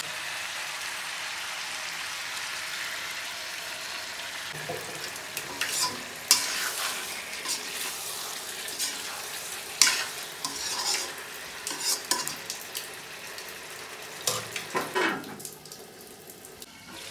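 Pork and potato curry sizzling in a metal kadai while a slotted metal spatula stirs and scrapes through it, with sharp clinks against the pan. Near the end the lid goes on and the sizzle turns muffled and quieter.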